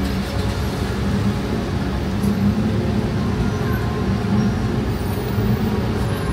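Road traffic: a steady low rumble of vehicle engines running, with no sharp events.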